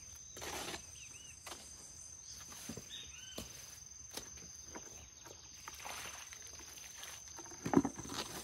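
A hoe scraping and chopping through a pile of wet mortar being mixed on bare ground, in irregular strokes, the loudest a sharp knock of the blade near the end. A steady high insect buzz runs underneath, with a few short bird chirps.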